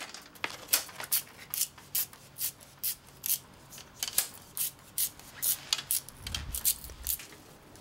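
Small hand knife splitting a thin bamboo strip, separating the outer skin from the inner flesh to thin it, with a run of short crisp crackles, about three a second, as the fibres part.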